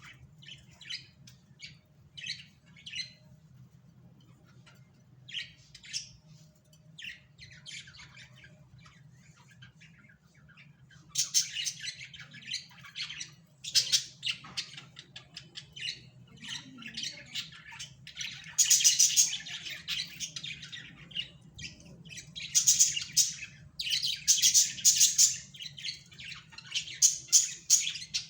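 Small pet parrots such as budgies chirping and squawking, with scattered calls at first, then a dense, loud chatter through the later part. A steady low hum runs underneath.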